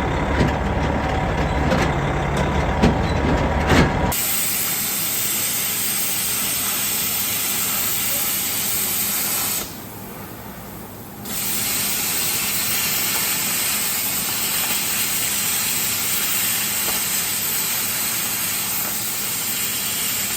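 Heavy machinery running, with knocks and cracks, for about four seconds; then it cuts to a steady strong hiss that drops away briefly near the middle.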